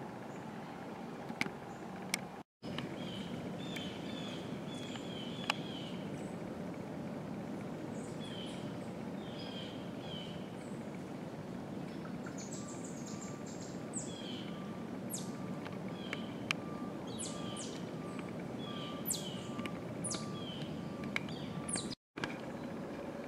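Outdoor woodland ambience: a steady background hiss with many short, scattered bird chirps. In the second half a faint, evenly spaced series of short notes repeats. The sound cuts out briefly twice, at clip joins.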